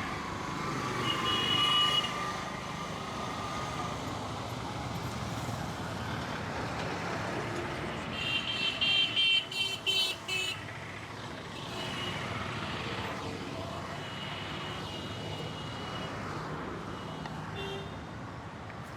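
Steady street traffic with vehicle horns: one horn sounds about two seconds in, and a run of short, quick honks comes about halfway through.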